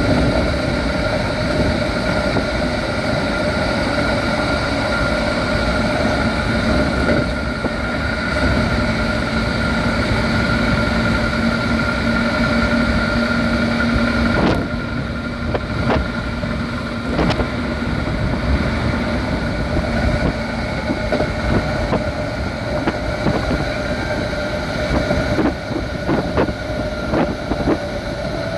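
Keikyu 1500 series chopper-controlled electric train at about 90–100 km/h, heard from on board: running noise with the steady hum of the chopper control while under power. About halfway through the power comes off as the train begins to slow, and the wheels clack over rail joints, more often near the end.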